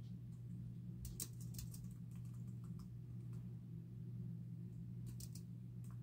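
Typing on a slim, low-profile computer keyboard: short flurries of key clicks with pauses between them, over a steady low hum.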